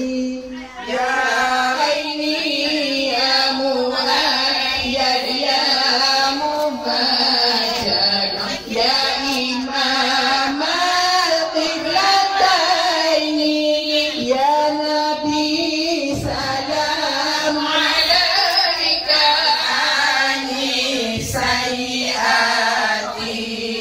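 A song with a woman singing long, drawn-out, ornamented notes over music.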